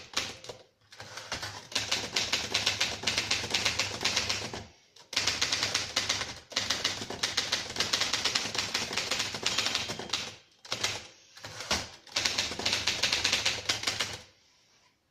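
1937 Rheinmetall portable typewriter being typed on: quick runs of key strikes, broken by several short pauses, stopping near the end.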